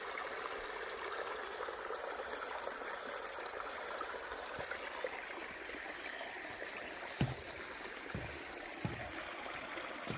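Falling water of a stream, a steady rushing and splashing. Three short, dull low thumps come in the second half.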